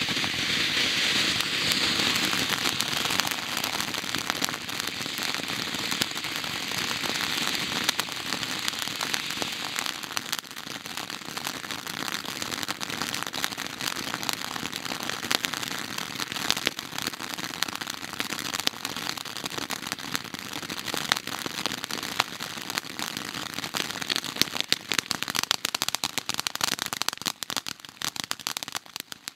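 Eye Trix ground fountain firework burning: a steady hiss of spraying sparks with dense crackling throughout. The hiss eases after the first several seconds, and the crackles turn sharper and more separate toward the end.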